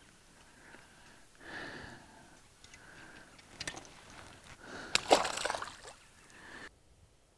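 Bluegill released back into the lake: a short splash about five seconds in, with faint rustling and a click from handling before it.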